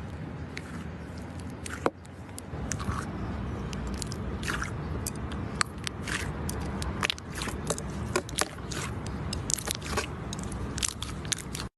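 Slime being squeezed and pressed by hand, giving a stream of small sticky pops and clicks that grow more frequent after the first few seconds, over a low rumble. The sound cuts off suddenly near the end.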